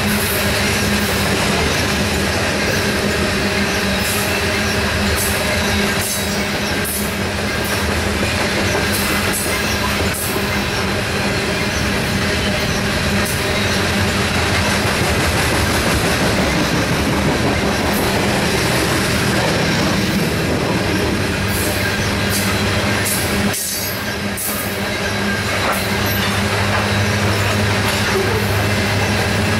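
Loaded coal cars of a freight train rolling past: a steady rumble with the clatter of wheels over the rail joints and a steady wheel squeal.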